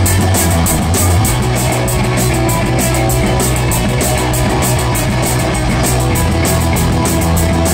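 A rock band playing loudly live on electric bass, electric guitar and drum kit. A steady low bass line runs under a fast, even cymbal beat.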